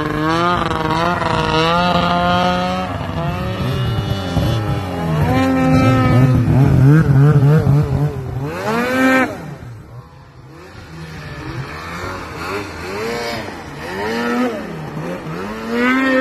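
Two-stroke snowmobile engine breathing through a Jaws aftermarket race can exhaust, revving up and down again and again. It is loudest as the sled passes close about seven seconds in, then fainter as it moves off, with a fresh rising rev near the end.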